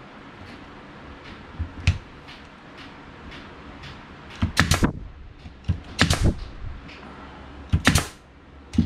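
Bostitch pneumatic nail gun firing nails into cedar fence boards: several sharp shots, mostly in quick pairs, starting about four and a half seconds in, after a lighter knock of wood about two seconds in.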